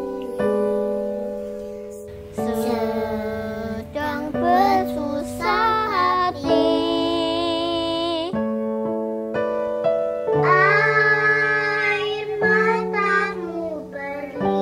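Young children singing a slow song over piano accompaniment, voices coming in two sung phrases with a short stretch of held piano chords alone between them.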